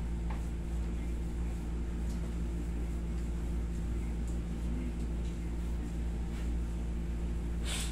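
Steady mechanical hum of a room air conditioner, several low tones held at an even level, with a brief noise near the end.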